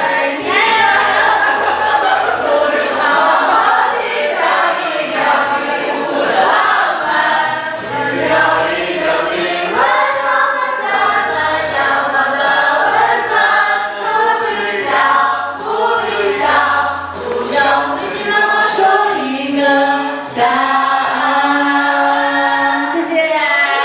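Many voices singing a song together over a low accompaniment.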